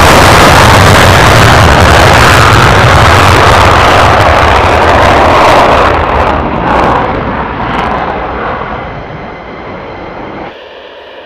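McDonnell Douglas F-15 Eagle's twin Pratt & Whitney F100 turbofans in full afterburner on a takeoff roll: a loud, steady roar that fades over the last several seconds as the jet climbs away, then drops off suddenly near the end.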